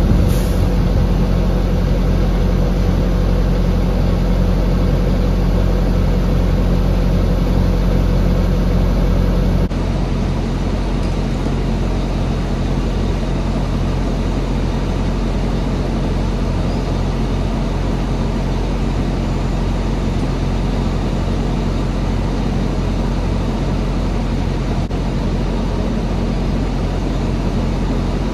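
Heavy diesel engine idling steadily, a low even running sound. Its sound changes abruptly about ten seconds in, then holds steady.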